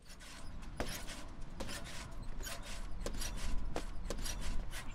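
Shoes striking and scuffing a hard outdoor surface as a person runs, jumps and lands: about seven irregular thuds over a low, steady rumble.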